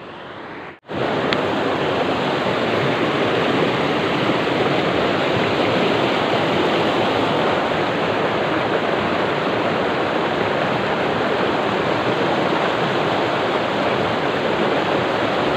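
River water rushing over rocks: a steady, loud rush of flowing water that cuts in abruptly about a second in.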